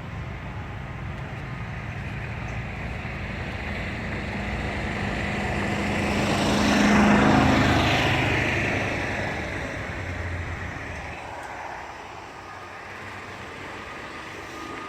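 A vehicle passing by: an engine drone that builds to a peak about seven seconds in, then fades away by about twelve seconds.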